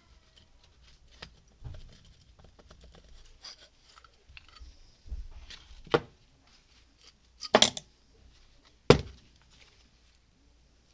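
Metal parts of a 250 Big Red starter motor being handled and pulled apart during disassembly: scattered light clicks and scrapes, with three louder sharp knocks in the second half.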